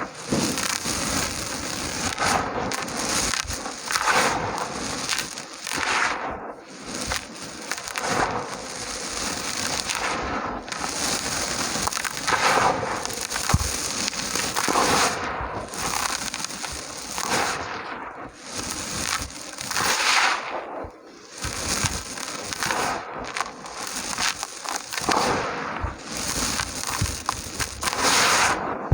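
Small dry chunks of red dirt crumbling and crunching: a steady gritty crackle, with a louder crunch about every two seconds as pieces break apart.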